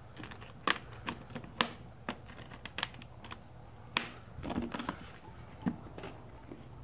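Irregular light clicks and knocks from an aluminium-framed carrying case being handled and turned over by hand, with a small flurry of knocks midway.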